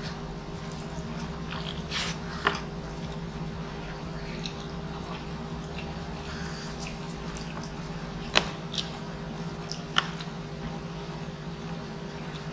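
Close-miked eating by hand: a person chewing and working rice and meat with bare fingers on a wooden board, with a few sharp clicks, the loudest about two and a half, eight and a half and ten seconds in. A steady low hum runs underneath.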